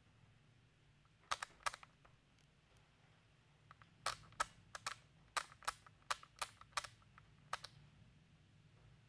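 Scattered sharp ticks of raindrops hitting the window glass: two about a second in, then a quick irregular run of about ten in the middle. Faint low hum beneath; no thunder.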